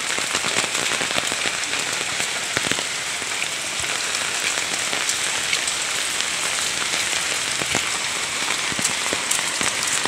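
Steady rain falling on foliage, wet ground and puddles: an even hiss sprinkled with many small drop ticks.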